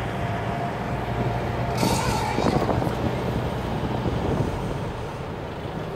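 A vehicle driving along a bush track, its engine giving a steady low hum, with a brief rush of noise about two seconds in.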